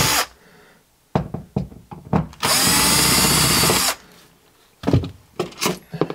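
Cordless drill-driver spinning out the screws of a double socket faceplate: one steady run of about a second and a half, ending about four seconds in. A few clicks come before it and a few knocks after, as the faceplate is handled.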